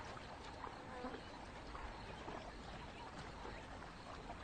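Faint wildlife ambience: scattered short animal calls over a steady low hiss.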